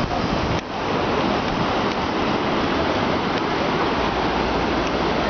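Mediterranean sea surf washing in, a steady rushing noise with a brief dip about half a second in.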